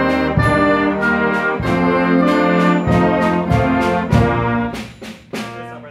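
School concert band playing a loud overture passage, brass to the fore, with strong attacks on many beats. The sound drops away briefly near the end before the full band comes back in on another chord.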